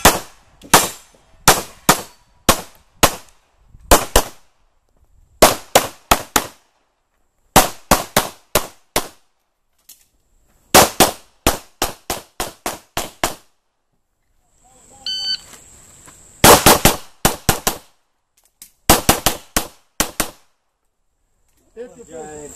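Pistol fired in rapid strings during a USPSA stage: shots in quick pairs and bursts of up to six, with short pauses between strings. About two thirds of the way through, a short electronic beep from the shot timer signals the start of the next string.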